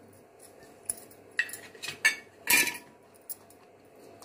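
A metal utensil clinking and tapping against a stainless-steel mixer-grinder jar: about five separate clinks, the loudest about two and a half seconds in with a short metallic ring.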